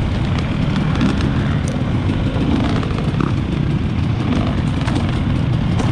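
Dirt bike engine running steadily under load, loud and close, with scattered clicks and rattles over it.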